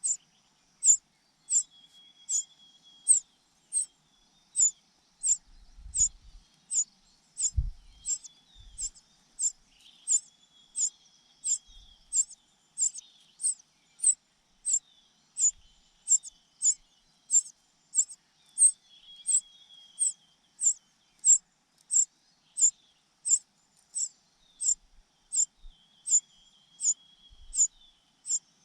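Cuckoo chick giving a sharp, high-pitched begging call over and over at an even pace, about one and a half calls a second, with fainter chirps from other young birds beneath it.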